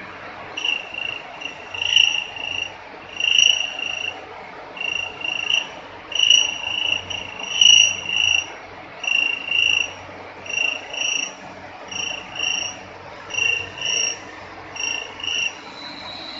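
High, shrill chirps in short paired bursts at one steady pitch, repeating about every second and a half, over a faint low hum.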